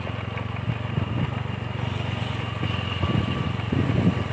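Motorcycle engine running steadily while riding, heard from on the bike, getting a little louder near the end.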